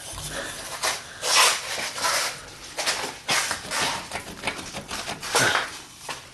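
Metal exhaust pipe scraping and rubbing in irregular rasping strokes as it is pushed and twisted over the Y-pipe to line it up.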